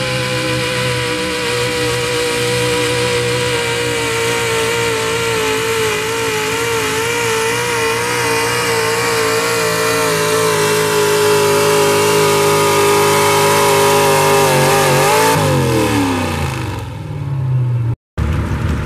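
A pulling pickup truck's engine holding high revs under full load as it drags the sled, its pitch slowly sagging and then wavering. About fifteen seconds in, the engine winds down quickly. Near the end, a sudden cut leads into a different truck's engine.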